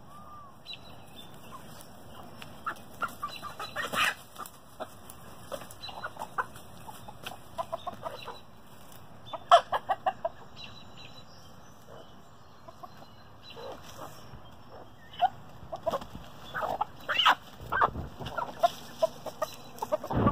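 Rhode Island Red chickens clucking: short calls come in scattered bunches, busiest a few seconds in, about halfway through, and again over the last few seconds.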